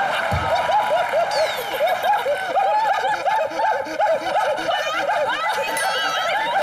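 Studio audience laughing, many voices overlapping throughout, with a brief low thump just after the start.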